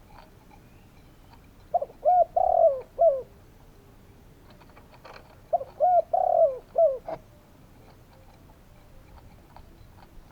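Spotted dove calling: two phrases of several soft coos, the first about two seconds in and the second about five and a half seconds in, each with a longer drawn-out middle note.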